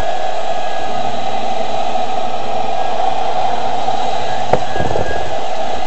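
Electric kitchen mixer running steadily at one speed, beating brownie batter.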